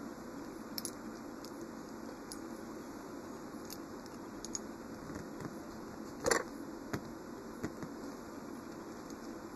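Faint clicks and handling noise as fingers work small rubber tyres onto the wheels of a die-cast toy car, with one sharper click about six seconds in and two smaller ones after it. A steady low background hum runs underneath.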